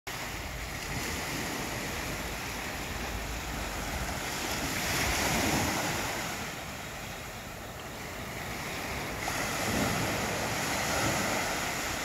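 Small sea waves breaking and washing up a sandy beach, the surge swelling about five seconds in and again near the end.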